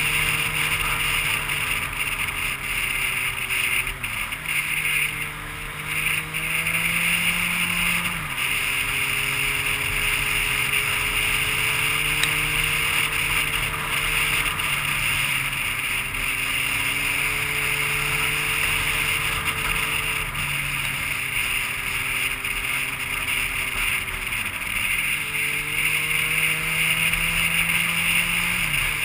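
A vehicle engine running at steady revs, its pitch dropping sharply several times, over a steady high hiss.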